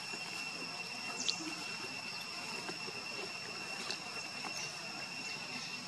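Outdoor forest ambience: a steady high-pitched insect drone, with a couple of short high chirps, one about a second in and another near four seconds.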